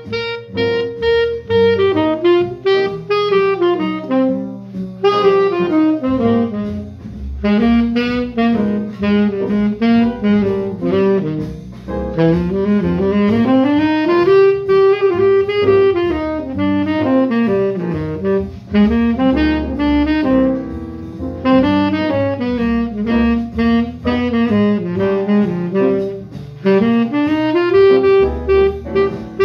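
Tenor saxophone playing a jazz line: quick runs that climb and fall again and again, in phrases with short breaths between them.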